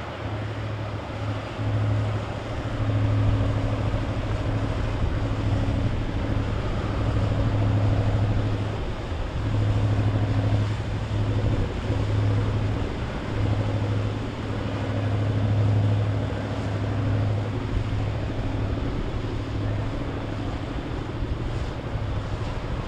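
Powerboat engines running as boats cruise past: a steady low engine hum that swells and fades in loudness, over a wash of water and wind noise.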